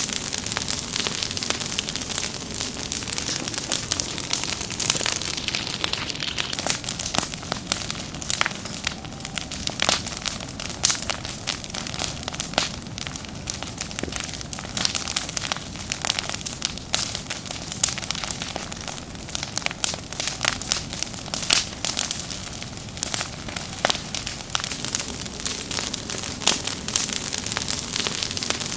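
Fire crackling: many irregular sharp pops and snaps over a steady hiss.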